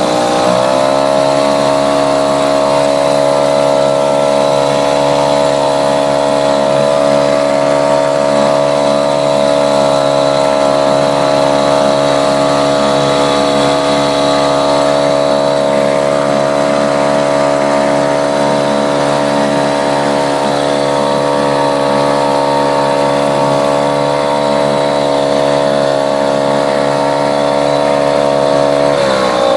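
Mariner 2.5 hp single-cylinder two-stroke outboard motor running steadily under way, a buzzy engine note. The engine speed picks up slightly about half a second in and dips briefly right at the end.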